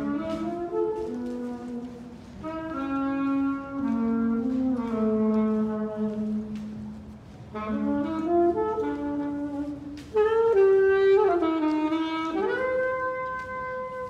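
A saxophone played solo by a street musician under a brick underpass: a melody in several phrases with short breaks between them, the last ending on a long held note.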